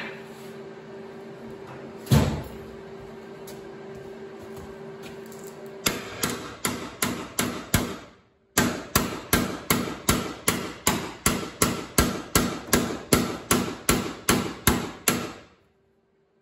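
Hammer striking a sheet-steel patch panel, about three sharp blows a second in two runs, knocking an arch into the scored patch. Before the blows there is a steady hum and one single heavier knock.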